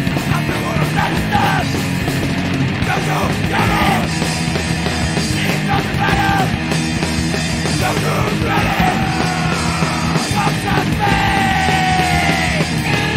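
Hardcore punk recording: distorted guitar, bass and drums playing loud and dense under shouted vocals.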